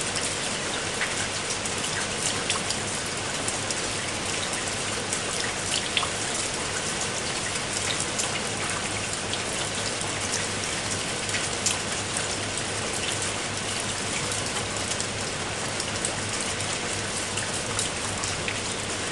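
Heavy rain falling steadily: an even hiss with many sharp ticks of single drops striking close by.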